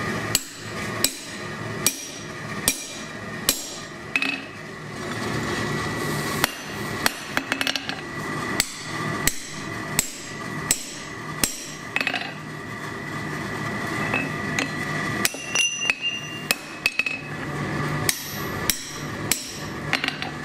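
Hand hammer striking a punch driven through a hot titanium bar on an anvil, punching a hole: steady, evenly paced blows a little more than one a second, with a few quick runs of lighter taps.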